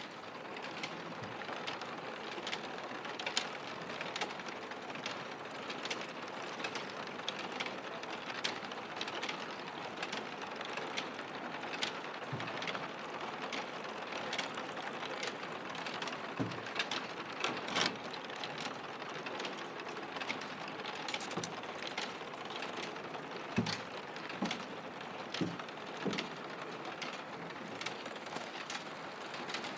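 Steady mechanical rattling and clicking of machinery in a tile factory, with irregular sharp clicks and a few dull knocks.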